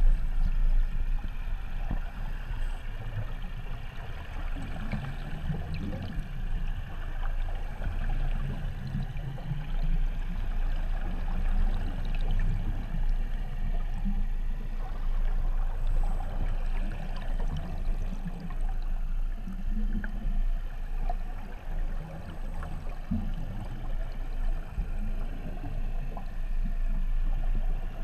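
Underwater sound of scuba divers breathing through their regulators, a steady bubbling, gurgling rumble of exhaled air that swells and eases irregularly.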